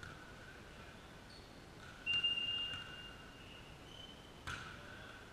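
Referee's whistle blown once for about a second, then briefly again a little higher, signalling the serve. About half a second later comes a single sharp smack of the ball being served.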